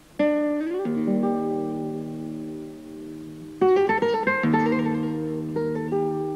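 Flamenco guitar playing slowly: a chord is struck just after the start and left ringing while notes climb above it, then a quick run of notes comes about three and a half seconds in, followed by more ringing chords.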